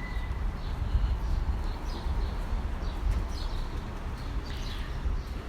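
Outdoor street ambience with a steady low rumble, and small birds chirping briefly every second or so.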